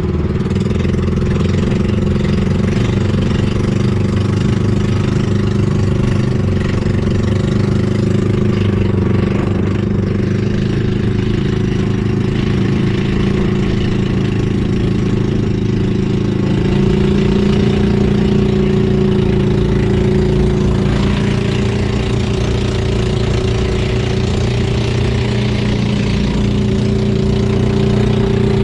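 Engine of a motorised outrigger boat (bangka) running steadily under way, its pitch lifting slightly a couple of times.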